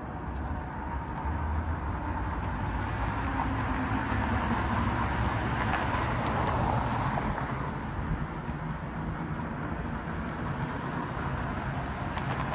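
Street traffic noise: a steady low rumble, with a vehicle going past that swells loudest about five to seven seconds in.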